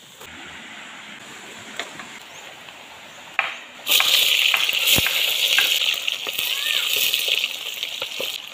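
Cooking pot over an open wood fire sizzling steadily as the food in it is stirred with a wooden spatula, with light clicks of the utensil against the pot. The sizzle starts abruptly about four seconds in; before it there are only quieter outdoor sounds with a few faint clicks.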